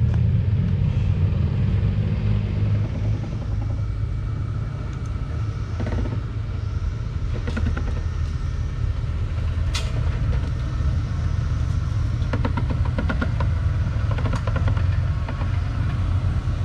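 Off-road truck engine running steadily with a low rumble, with scattered clicks and short rattles in the second half.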